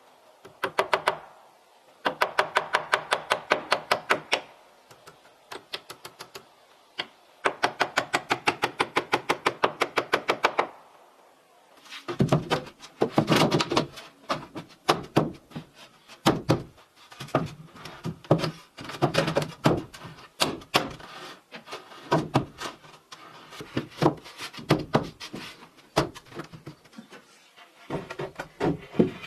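Two runs of rapid, evenly spaced knocks, about eight a second, each lasting a few seconds, followed by irregular knocks and clatter.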